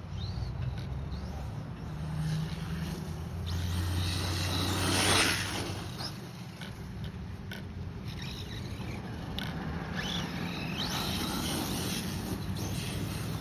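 Electric RC car driving, its motor whining up in pitch now and then, over a low rumble of wind on the microphone. A loud rushing noise comes about five seconds in.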